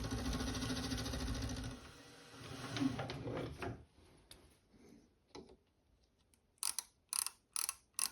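Milling machine gearing running for about two seconds, then again briefly, then a run of sharp, evenly spaced mechanical clicks about two a second near the end.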